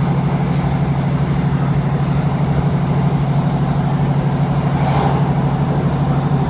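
Class 156 diesel multiple unit's Cummins diesel engine running steadily under way, a low droning hum heard from inside the carriage. A brief rushing swell comes about five seconds in.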